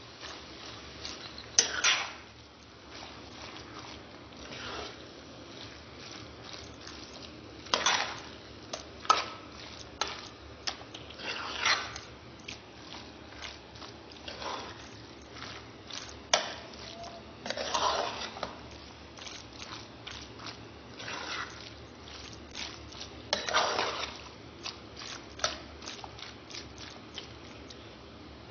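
Long metal spoon stirring chicken gizzards and masala in a steel pot: irregular scrapes and clanks of the spoon against the pot, with wet squelching of the meat.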